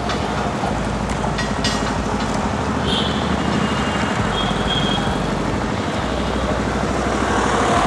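Street traffic: a steady din of vehicle engines and tyres on a busy road, with a low rumble and a few brief clicks.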